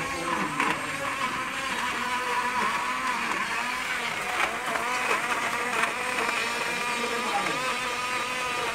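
A portable rechargeable bottle blender running steadily, its motor whining as it churns chunks of carrot in water; its battery is low.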